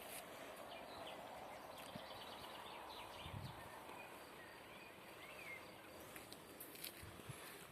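Faint outdoor rural ambience with a few scattered bird chirps and a couple of soft low knocks.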